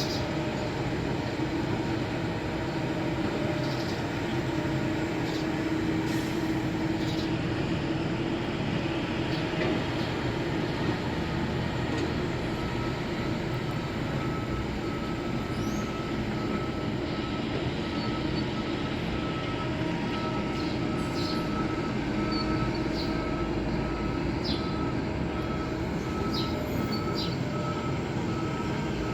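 Heavy diesel construction machinery running steadily, a continuous engine drone with a hum, a faint thin whine coming in about halfway through and scattered light clicks.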